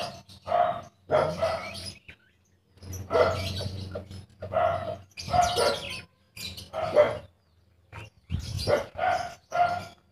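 A young Bangkok chicken sick with ngorok, a snoring respiratory illness, squawking over and over while it is held and its throat is cleaned. There are about ten short, harsh calls in irregular bursts, with a pause of about a second between two and three seconds in.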